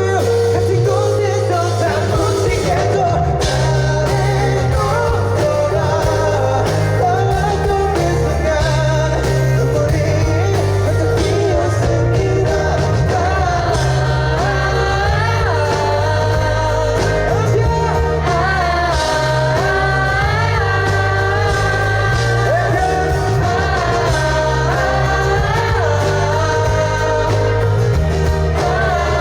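A male singer performing a Korean pop-rock ballad live, his voice over musical accompaniment with a steady pulsing bass line.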